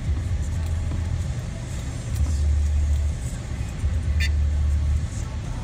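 Car driving in city streets, heard from inside the cabin: a low road and engine rumble that swells and eases. A brief high chirp comes about four seconds in.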